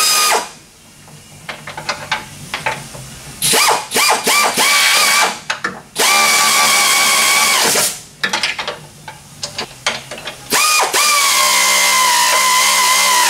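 Hose-fed air ratchet whining as it spins out front-suspension control-arm bolts, triggered in short bursts and then in two longer runs of a couple of seconds each; the pitch sags slightly in the last run.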